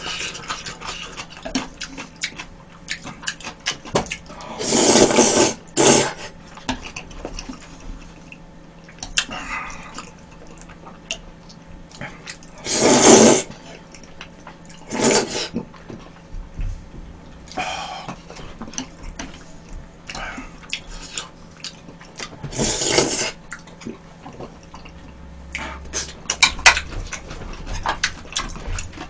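Close-miked eating sounds: red bean porridge slurped from a bowl, in several loud slurps of about a second each, with wet mouth sounds and small clicks of chopsticks against the bowl between them.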